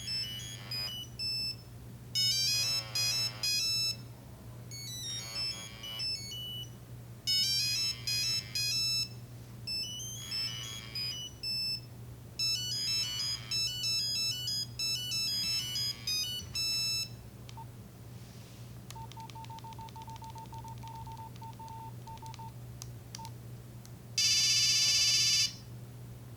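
Nokia 3395 mobile phone playing a monophonic ringtone: a quick melody of single electronic beep-notes that stops about two-thirds of the way through. After it come a run of short, faint beeps and then one loud, long tone lasting about a second and a half.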